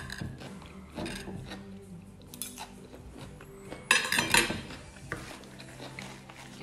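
A fork clinking and scraping on a plate during a meal, in scattered light clicks. About four seconds in there is a louder half-second burst of noise.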